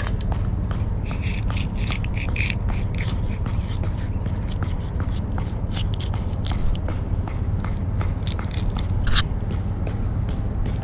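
Knife blade cutting through a small baitfish to make cut bait: a run of short crunches and scrapes as it goes through skin and bone, with one sharper scrape near the end.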